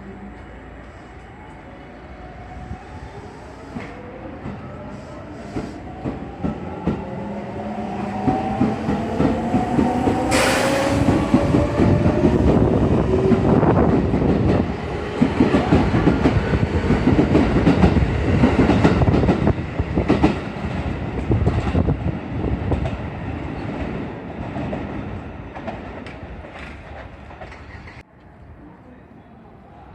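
Electric commuter train moving past at the platform: its motor whine rises slowly in pitch as it gathers speed, with a short sharp hiss about ten seconds in. The wheels then clatter rhythmically over the rail joints, loudest in the middle and fading away, before the sound cuts off abruptly near the end.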